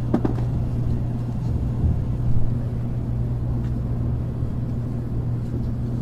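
Steady low hum inside an N700A Shinkansen car at a station platform, with a single knock just after the start.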